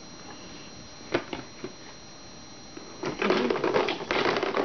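Hands handling small plastic products on a table: a few light clicks about a second in, then a second and a half of rattling and rustling near the end.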